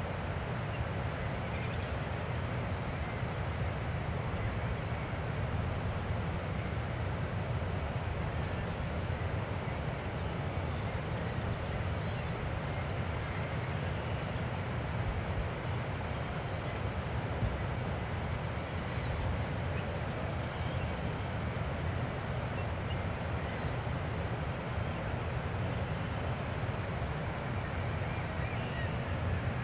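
Steady low rumble of a Great Lakes self-unloading freighter's engines as the ship approaches in the distance, with a few faint high bird chirps.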